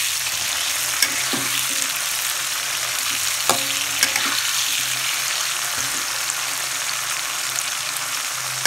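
Red and green chilies frying in hot oil in a wok: a steady sizzle, with a few sharp clinks of a metal spatula against the wok as they are stirred. The chilies were slit open beforehand so trapped air does not make them burst in the oil.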